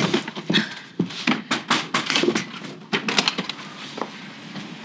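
A woman sobbing in short, gasping breaths, a few to the second, dying away about three and a half seconds in.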